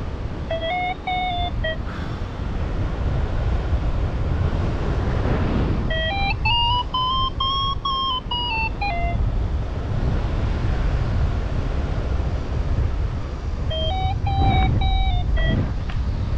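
Wind rushing over the microphone in flight, with a paragliding variometer beeping in three spells of quick short beeps. In the middle spell the beeps climb in pitch and fall back again, the vario's sign of the glider climbing in rising air.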